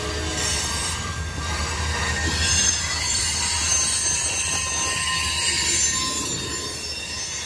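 Covered hopper cars of a KCS grain train rolling past on a curve: steady high-pitched wheel squeal from the flanges over a low rumble of the cars.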